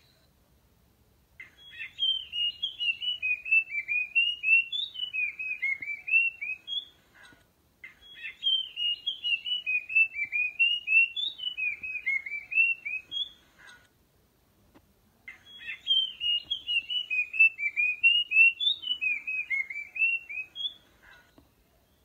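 Puff-throated babbler song: three bouts, each about six seconds of quick, falling whistled notes, the same phrase each time.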